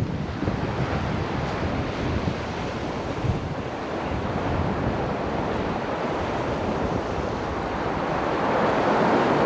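Strong gusty wind buffeting the microphone: a steady rush of noise with low rumbling gusts, swelling louder near the end.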